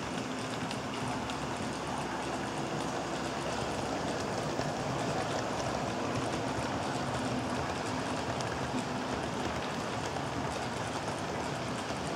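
HO-scale model freight train running along the track: a steady whir of the locomotive motors and rolling wheels with light clicks, a little louder a few seconds in as the train comes close.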